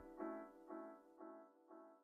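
Faint tail of background music after the track cuts off: a repeated keyboard-like note pattern, about three notes a second, dying away to near silence.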